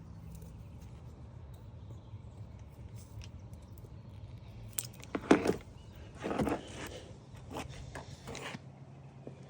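Handling noise from LED tail-light load resistors being taken out and handled: a few sharp plastic clicks and short rustles, loudest about five seconds in, over a steady low hum.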